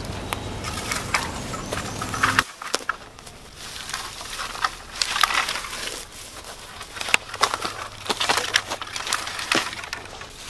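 Dry sticks being snapped and broken up for firewood: irregular cracks and splintering crackles. A steady low hum in the first couple of seconds cuts off abruptly.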